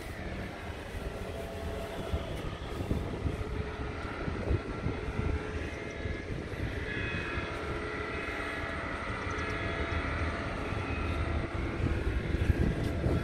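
A heavy truck's diesel engine running steadily at idle, heard close by.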